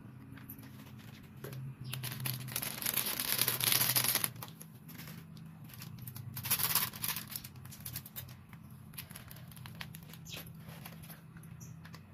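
Current noodles' plastic seasoning sachets being torn open and crinkled as the spice powder is shaken out over the noodles. There are two bursts of rustling: a longer one about two seconds in and a shorter one past the middle, with a low steady hum underneath.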